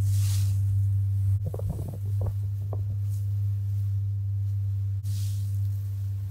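Steady low engine hum of a motorboat. Two brief hisses of water or spray come near the start and about five seconds in.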